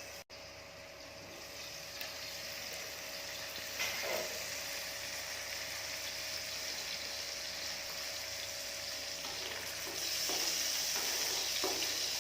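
Button mushrooms sizzling as they fry in oil in a pan, a steady hiss with a few light knocks; the sizzle grows louder about ten seconds in.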